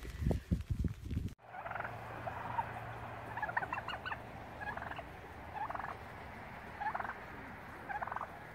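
A few low thumps in the first second, then a turkey gobbling repeatedly, short rattling calls about once a second. The turkey is a displaying tom, tail fanned, challenging its own reflection in a car door.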